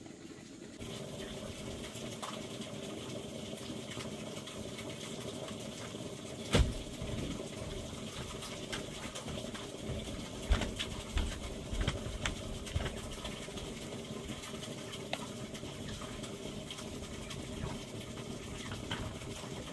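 Water running or pouring steadily, with a sharp knock about a third of the way in and a few smaller knocks around the middle.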